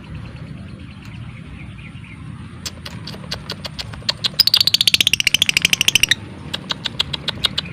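Lovebird calling: scattered sharp, typing-like clicking chirps, then a loud, fast rattling run of chirps lasting about two seconds that slides slightly down in pitch, then scattered clicks again.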